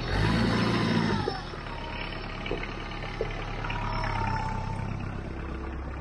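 Kubota engine of a compact utility tractor revved on the foot throttle: it speeds up sharply at the start, holds for about a second, then drops back to idle. A second, smaller rev comes about four seconds in.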